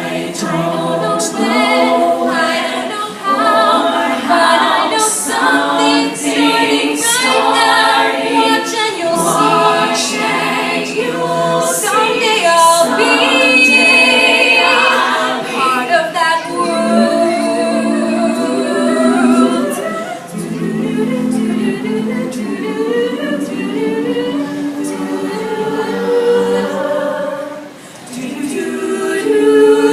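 All-female a cappella group singing in close harmony, voices only with no instruments, a solo line over backing vocal parts; the sound dips briefly near the end before the next phrase comes in.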